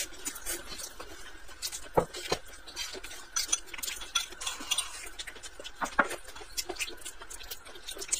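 Close-up eating sounds: wooden chopsticks clicking and scraping against a plate and a serving dish, with chewing and mouth smacks in between. A few sharper clicks come about two and six seconds in.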